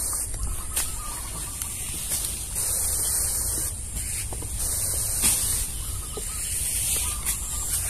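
Sprayer wand hissing in intermittent bursts as liquid is misted onto plants, with a few knocks from handling the wand.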